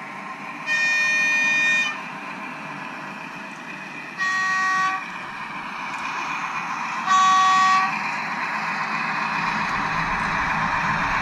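Diesel locomotive horn sounding three times: one blast of about a second, then two shorter, lower-pitched blasts about three seconds apart. Underneath is a steady train running noise that grows louder near the end as the train approaches.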